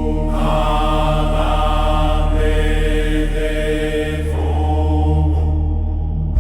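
Meditation music of Tibetan bells: long-held, overlapping ringing tones over a deep steady drone, with a new tone struck right at the end.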